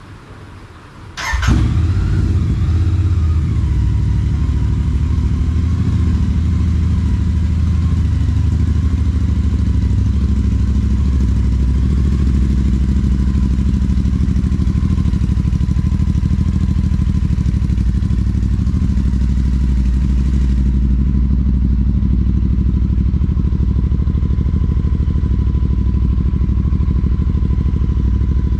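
Royal Enfield Super Meteor 650 parallel-twin breathing through a Rhino Racing aftermarket exhaust: it starts about a second in with a sharp crack, then idles steadily and loudly.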